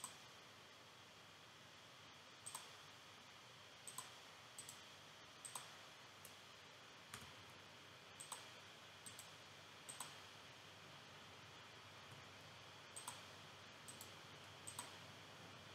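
Computer mouse clicking: about a dozen short, sharp clicks at uneven intervals, some in quick pairs, over a faint steady hiss.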